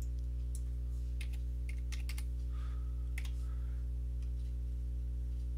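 Computer keyboard keystrokes and mouse clicks, a scattered handful of sharp clicks over the first three seconds or so, with a steady low electrical hum underneath.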